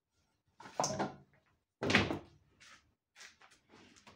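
Handling noise of a coiled rubber power cord being lifted and moved on a hard surface: two loud clunks about one and two seconds in, then lighter knocks and rustles.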